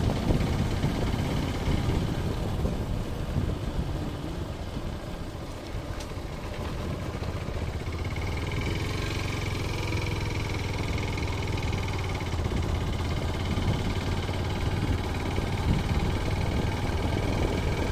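The engine of a small vehicle runs steadily as it travels along a road, under a low wind rumble on the microphone. A faint high whine rises above it for a few seconds near the middle.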